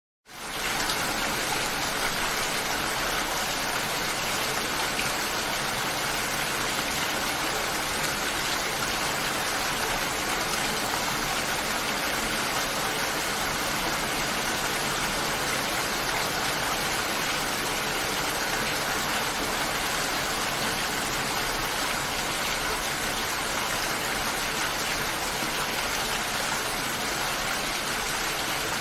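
Steady rain falling, an even unbroken hiss. It rises in quickly from a brief silence at the very start.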